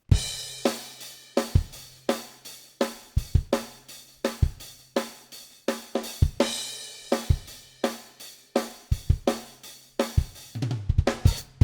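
Multi-miked drum kit recording playing back unprocessed, as captured before any EQ. It is a drummer's groove of kick, snare, hi-hat and cymbal hits, with a short break near the end before the hits resume.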